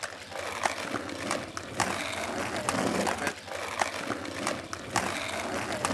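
Inline skates rolling over a paved quay: a steady rolling noise with sharp clicks here and there.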